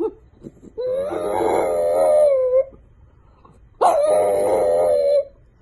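French bulldog howling: two long, wavering howls, the second starting with a quick rise in pitch.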